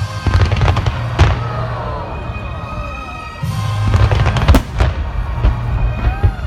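Aerial fireworks bursting in a rapid series of bangs and crackles, the loudest bangs about a second in and past the middle, over music playing.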